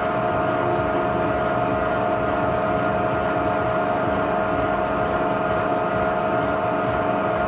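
Milling machine running steadily while a small disc cutter mills a spline slot in a shaft, with a constant whine from the machine's drive.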